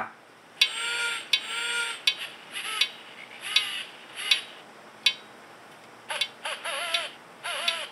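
Recorded owl calls played from the small speaker of the voice chip in an owl figurine: two drawn-out hoots in the first two seconds, then a series of shorter, wavering calls, with a few clicks between them.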